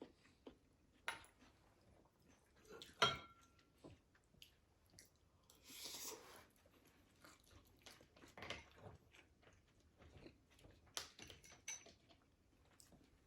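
Faint, close-miked chewing and crunching of fried food, with irregular mouth clicks and a louder click about three seconds in, and a brief hiss around six seconds in.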